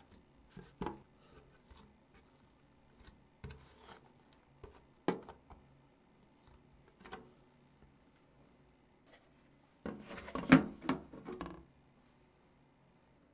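Hands rounding a ball of soft bread dough inside a clear plastic food container, with scattered soft rubs and light knocks against the plastic. About ten seconds in comes a burst of louder plastic clattering, the loudest part.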